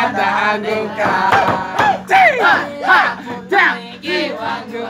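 A voice singing or wailing in short phrases that swoop up and down, over a steady hum.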